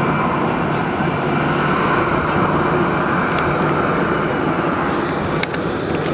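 Boeing 767-200ER's twin turbofan engines at takeoff thrust as the airliner climbs away, a loud, steady jet noise. A short sharp click comes about five and a half seconds in.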